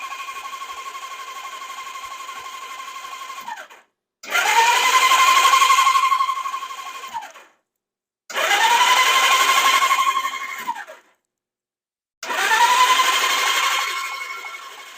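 1977 Suzuki GS550's electric starter cranking its four-cylinder engine in bursts of about three seconds, each a whine that climbs quickly, holds steady and winds down, without the engine firing; the cranking is done to check the plugs for spark. One burst ends about four seconds in, and three more follow.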